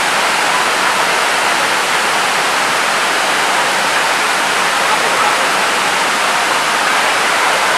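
Wide, tiered waterfall pouring over rock ledges: a loud, steady rush of falling water.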